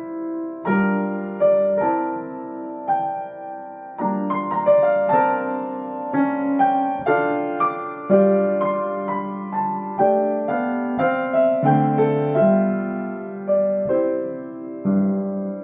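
Yamaha C1X baby grand piano played in an unhurried melodic passage. Single notes run over lower chords, each struck note ringing and fading.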